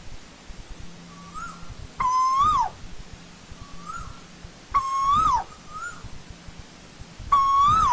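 Asian koel calling: three loud calls about two and a half seconds apart, each a note that rises and then swoops down at the end, with fainter, shorter calls between them.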